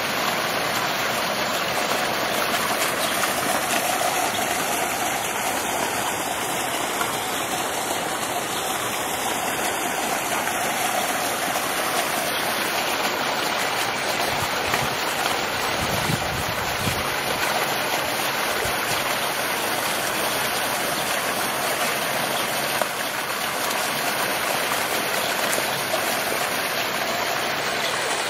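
Water running steadily down a small rock-lined garden stream fed by a little waterfall, an even rushing and splashing.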